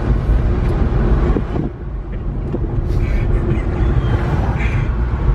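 Engine of a 1992 Suzuki Carry kei truck, a small 660 cc three-cylinder, running steadily under way, with dense low road rumble throughout and a brief dip in level just before two seconds in.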